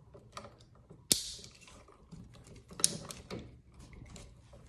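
Small plastic-and-metal clicks and handling noise from a new electrical receptacle being worked into place, with a sharp snap about a second in and another just before three seconds.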